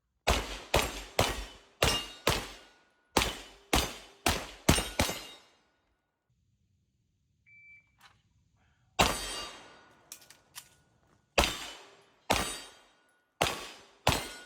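Pistol shots from a 2011 handgun in quick strings: two volleys of five shots about half a second apart, a short steady shot-timer beep partway through, then five more shots spaced about a second apart.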